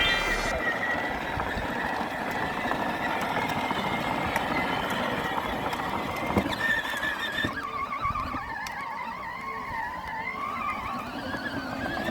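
Children's Power Wheels ride-on car driving on its regular battery, its electric motor and plastic wheels running steadily, with wavering high sounds joining from about six seconds in.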